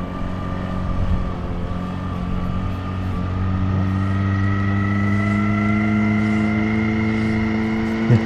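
Outboard boat motor running steadily, its pitch and level rising a little about three seconds in as it speeds up.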